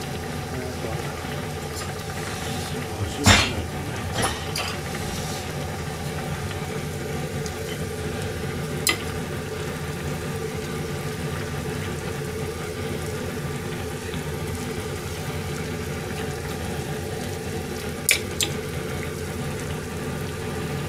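Sukiyaki broth boiling hard in a pot on a gas burner, a steady bubbling hiss, with a few sharp metal clinks of a ladle against the pot and a small dish, the loudest about three seconds in.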